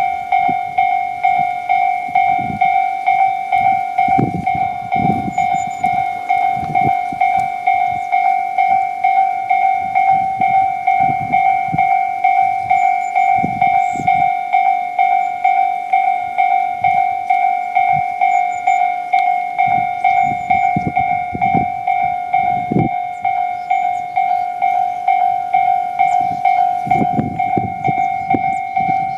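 A railway warning bell ringing on and on, about two and a half strikes a second, as a train arrives. Low rumbles from the train come and go beneath it.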